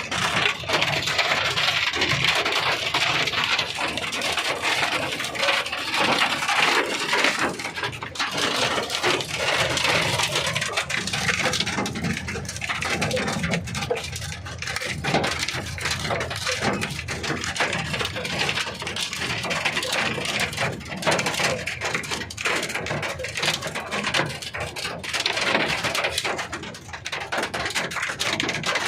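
Hailstones pelting hard surfaces in a heavy hailstorm with rain: a dense, continuous clatter of many sharp impacts.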